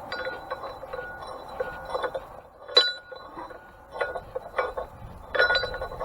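Metal grain-mill parts clinking and knocking together as they are handled and fitted, with short ringing taps. The sharpest clink comes about three seconds in, and a quick run of taps comes near the end.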